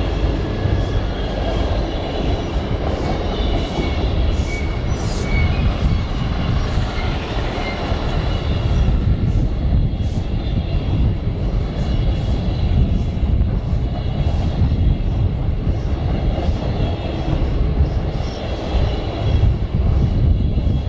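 Orient Express Wagons-Lits passenger carriages rolling past on the rails: a steady rumble of wheels on track, with faint high squeals from the wheels a few seconds in and again near the end.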